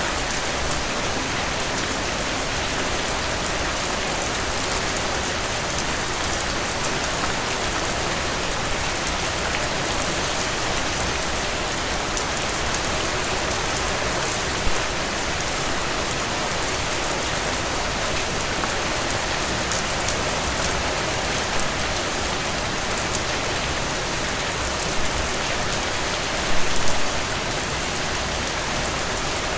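Steady rainfall: an even hiss of rain on surfaces, fine drop spatter running through it, and a few louder single drop hits, with a short cluster of them near the end.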